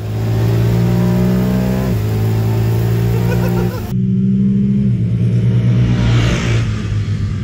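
Honda Pioneer 1000-5 side-by-side's parallel-twin engine accelerating hard, its pitch climbing, dipping once about two seconds in as at a gear change, then climbing again. The sound changes abruptly about halfway. The engine then runs steadily, with a brief rush of tyre and wind noise as the machine passes about six seconds in.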